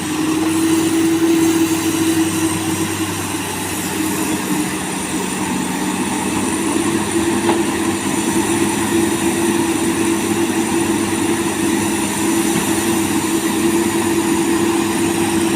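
Komatsu PC200 hydraulic excavator's diesel engine running steadily, a continuous drone with no breaks.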